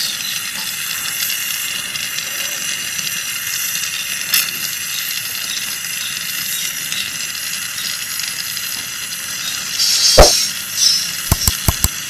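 Small oxy-fuel brazing torch (micro autógena) hissing steadily as its flame heats a copper tube joint at a refrigerator compressor. About ten seconds in the hiss surges louder, followed by a few sharp clicks near the end.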